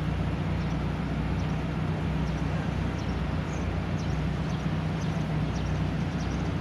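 Steady low hum of an idling car engine, unchanging throughout, over street noise.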